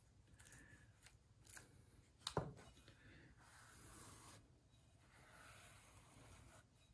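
Faint rubbing on a clay bowl: a brush working slip into the bowl, then a damp sponge wiping the rim. A single short knock about two seconds in.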